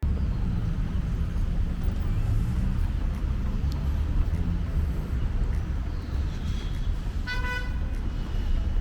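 City street traffic: a steady rumble of passing vehicles, with a short car horn honk about seven seconds in.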